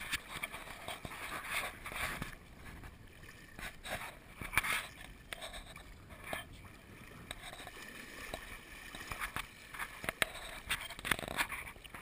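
Shallow river water splashing and sloshing in irregular bursts as a trout is handled in a landing net close to the surface.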